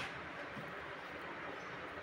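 Quiet, steady background noise with no distinct event: room tone.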